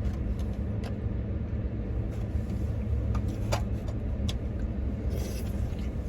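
Truck engine idling, heard inside the cab as a steady low rumble, with a few faint clicks and a short rustle near the end.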